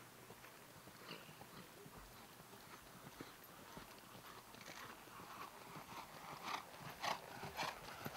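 Hoofbeats of a grey Lusitano stallion trotting on sand arena footing, growing louder in the second half as the horse comes nearer.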